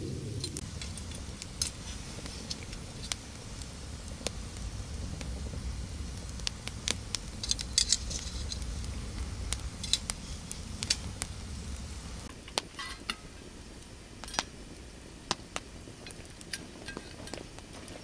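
Open wood fire crackling under saury grilling on a wire mesh: irregular sharp pops and snaps, over a low rumble that drops away about twelve seconds in.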